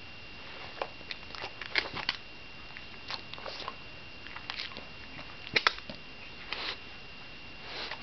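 Shiba Inu sniffing and nosing at a pile on a hardwood floor: short, irregular sniffs and small clicks, the loudest pair a little past halfway.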